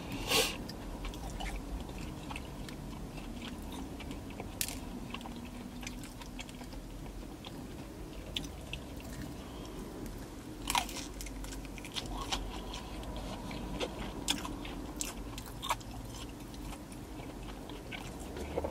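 A person chewing and biting into crispy vegan fried chicken: crunching with wet mouth clicks, and a few louder bites spread through.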